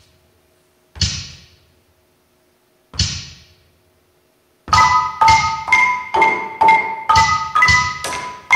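Marimba played with mallets: two single dry, unpitched strikes about two seconds apart, then from about halfway a steady run of pitched notes, about three a second, repeating a few high notes.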